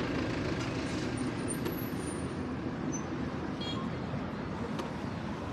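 Steady road and traffic noise with wind rumble on a helmet-mounted microphone while riding an electric scooter among other scooters in city traffic. A few faint short high beeps and ticks sound briefly partway through.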